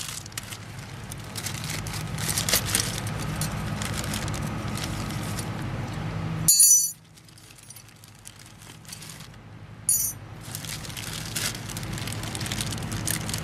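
Plastic bag crinkling as small metal brake-caliper hardware (bolts and clips) is sorted through inside it, with two sharp metallic clinks of the parts, about six and a half and ten seconds in. A steady low hum runs underneath.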